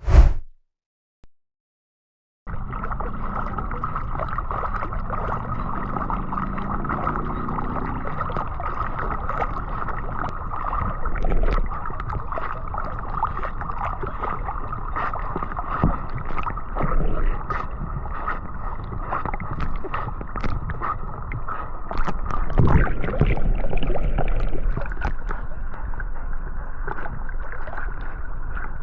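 Water sloshing and gurgling right against the microphone of an action camera worn by a swimming dog, with many small clicks and knocks. A loud hit at the very start, then about two seconds of silence before the water sound begins.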